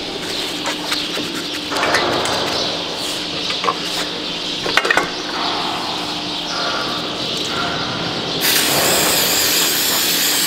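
Aerosol spray can hissing steadily as antiseptic is sprayed onto an open hoof wound, starting abruptly about eight seconds in. It follows a stretch of scattered knocks and handling noises.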